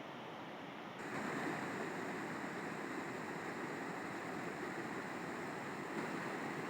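River water flowing and rushing steadily, a constant noise that gets louder and brighter about a second in.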